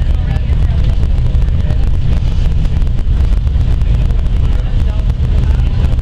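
Steady, loud rushing of a large waterfall heard close up from a boat, heavy in the low rumble.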